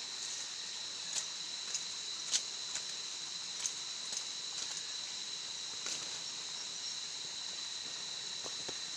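Steady high-pitched drone of a forest insect chorus, with scattered small clicks and taps.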